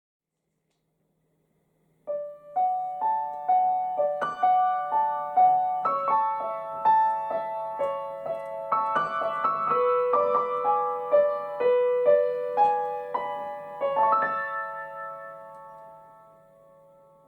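Piano music: a gentle melody of struck notes that begins about two seconds in, then stops and its last notes ring out and fade near the end.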